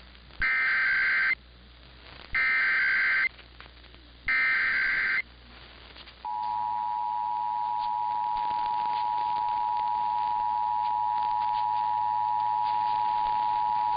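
Emergency Alert System header: three bursts of SAME digital data tones, each just under a second long and about a second apart. About six seconds in, the steady two-tone EAS attention signal (853 and 960 Hz) begins and holds. Together they open a required monthly test.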